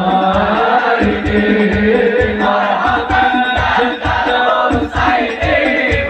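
Live sholawat, Islamic devotional songs in praise of the Prophet, sung by a group of voices over a steady drum beat, heard loud through a public-address system.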